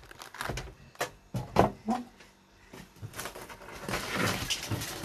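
Kitchen handling noises: a few separate clicks and knocks, then from about three seconds in a denser rustling clatter.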